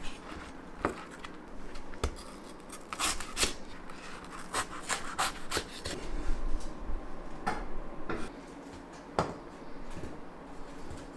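Kitchen work sounds: irregular knocks, clicks and rubbing as food and utensils are handled on a wooden board and counter, with a heavier thump about six and a half seconds in.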